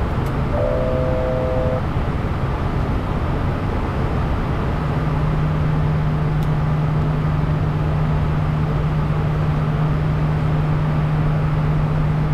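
Steady cockpit noise of a Bombardier Challenger 350 business jet in climb: airflow and engine rumble from its twin turbofans. A short electronic tone sounds about half a second in for about a second, and a steady low hum joins about five seconds in.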